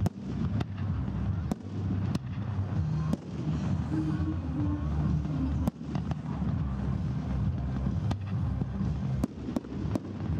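Aerial fireworks display: about ten sharp bangs of shells bursting at irregular intervals over a steady low rumble.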